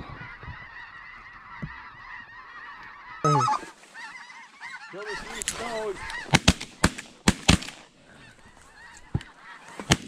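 A flock of snow geese calling overhead, a steady chorus of high honks that gives way to louder, closer yelping calls. About six seconds in comes a quick volley of about five shotgun shots from several hunters, with two more shots near the end.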